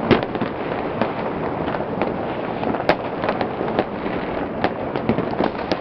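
Many fireworks and firecrackers going off at once across a city: a continuous din of distant bangs and crackling, with sharper, nearer cracks standing out, the loudest just after the start and again about halfway through.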